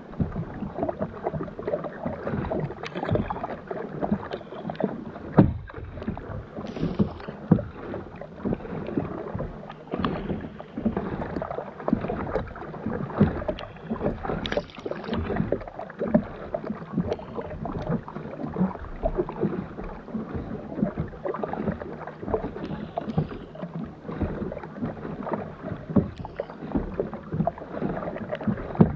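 Water splashing and lapping against the hull of a plastic sit-on-top kayak as it is paddled, with the splash of the double-bladed paddle's strokes; irregular, with a few louder slaps.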